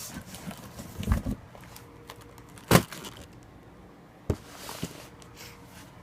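A few sharp knocks and handling noises, the loudest about three seconds in, as firework packages are picked up, moved and set down.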